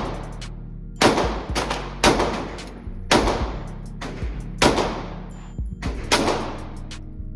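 A string of gunshots at a shooting range, the loudest about one a second with a few smaller cracks in between, each followed by a short echoing tail. Steady background music plays underneath.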